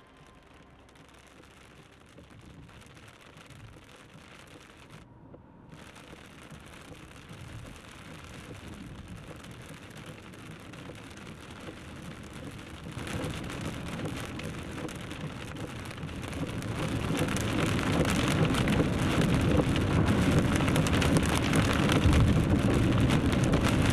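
Heavy rain and tyre spray heard from inside a car driving on a wet highway, a steady hiss that rises from faint to loud, stepping up about halfway through and again about two-thirds through.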